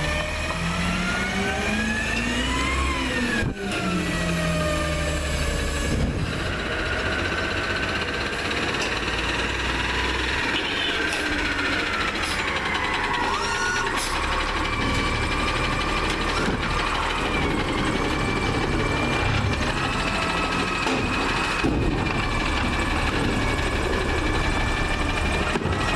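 CNG engine of a Peterbilt 320 garbage truck rising in pitch as it pulls up, then dropping about three seconds in. It then runs steadily while the McNeilus ZR automated side-loader arm reaches out and lifts a cart, with a steady high hydraulic whine over the engine in the second half.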